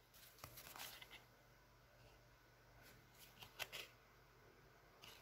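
Faint handling of football trading cards: a few short, soft scrapes as the cards are slid and flipped through by hand.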